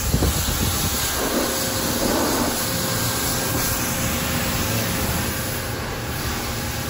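Pressure washer jet spraying a car's bodywork and wheel: a steady hiss of water.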